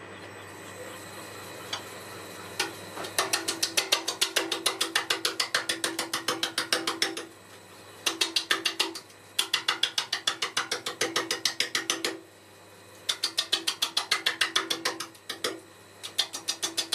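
Wood lathe running with a steady hum, and a rapid, even clicking of about six clicks a second that comes in several bursts of one to four seconds.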